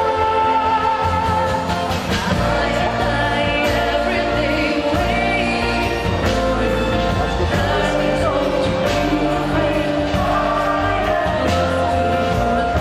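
A small live ensemble plays a song: a woman and a man sing into microphones, accompanied by clarinet, acoustic guitar, double bass, keyboard and violins.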